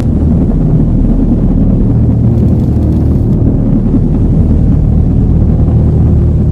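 Loud, steady low rumble with a droning hum in it, which sets in just before and holds without a break.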